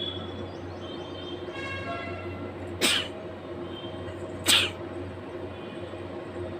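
A woman sneezing twice, short and sharp, about a second and a half apart; the second sneeze is louder.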